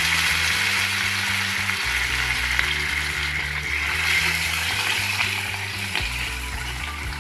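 Masala-coated fish pieces shallow-frying in hot oil in a pan: a loud, steady sizzle.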